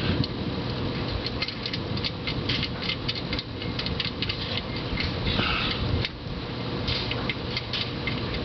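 Irregular light clicks and ticks of the oil drain plug being handled and threaded back into the oil pan by hand, over a steady background hum.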